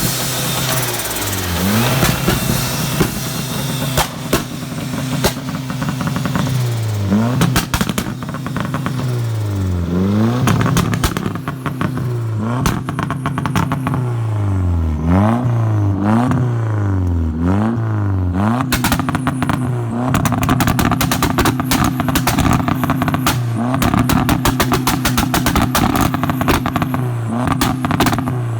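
Turbocharged Toyota 1NZ-FE four-cylinder engine in a Lada, revved up and down again and again, with a rapid clatter of knocks over its note. This is the knocking the owner traces to bent connecting rods and a damaged crankshaft.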